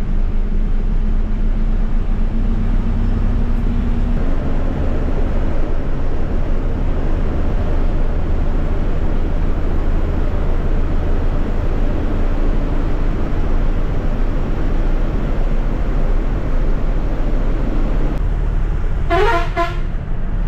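Ashok Leyland bus's diesel engine running under way, heard from the driver's cab: a steady drone that rises slightly in pitch over the first few seconds. A horn toots briefly about a second before the end.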